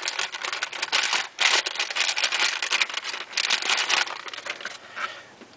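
Crinkling and rustling of a metallic anti-static bag as a hard drive is pulled out of it. The crackle thins out and fades over the last second or so.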